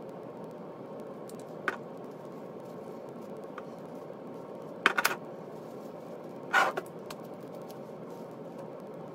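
Dried herbs shaken from a spice jar into a slow cooker: a faint click early, then two short bursts of rattling shakes about five seconds in and a second and a half later, over a steady room hum.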